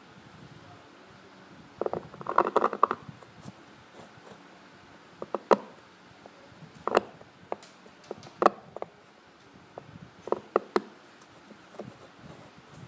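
Steel seal-carving knife cutting into a soft stone seal. A burst of rapid gritty scraping comes about two seconds in, then single sharp chipping clicks at irregular intervals, a second or two apart.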